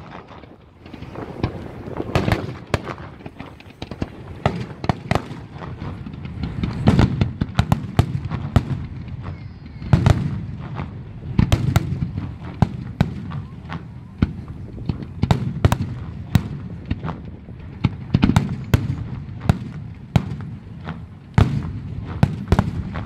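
Fireworks display: aerial shells bursting in rapid, irregular succession, many sharp bangs over a steady low rumble.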